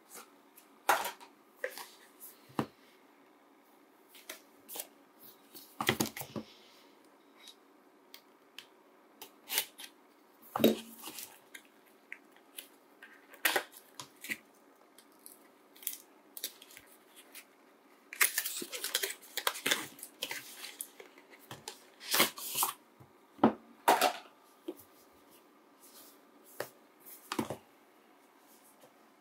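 A cardboard eyeglasses box and its white paper wrapping being handled and unwrapped: scattered taps, scrapes and paper rustles, with a longer stretch of crinkling about two-thirds of the way in.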